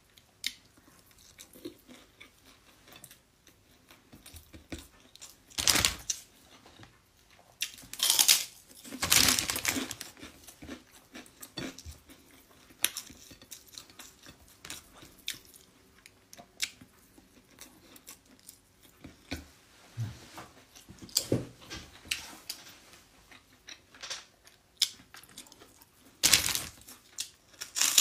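Someone eating a crisp cracker (krupuk), with loud crunching bites in irregular bursts and quieter chewing between.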